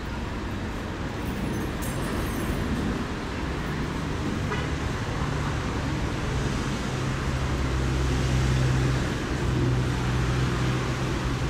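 Road traffic: a steady wash of traffic noise, with a vehicle engine's low hum growing louder from about a third of the way in.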